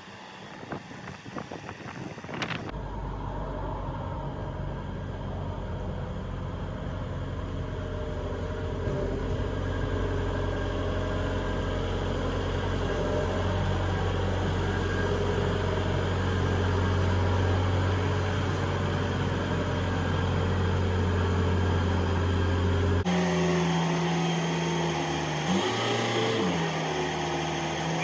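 Heavy machinery running with a steady low drone that builds up over several seconds. It then cuts abruptly to a different steady hum, which briefly drops in pitch and recovers near the end.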